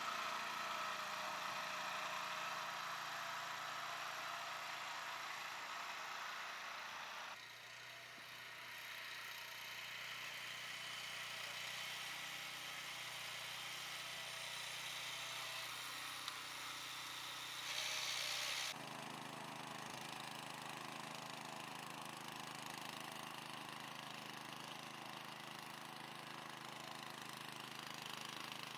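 Steady engine-like running noise that changes abruptly twice, as from spliced clips.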